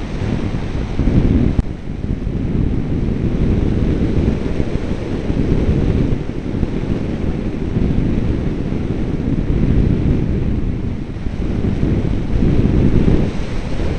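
Airflow rushing and buffeting over the onboard camera microphone of an RC glider in flight: a loud, steady, low rumbling noise with no motor tone in it.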